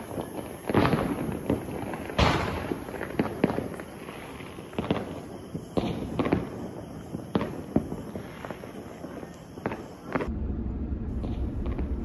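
Firecrackers and fireworks going off all around: a run of sharp bangs at irregular intervals with crackling between them, the loudest about two seconds in. About ten seconds in, it cuts to the steady low rumble of a car driving.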